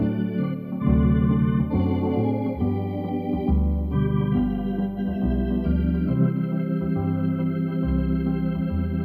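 An organ being played: held chords over a bass line that steps to a new note every half second to a second.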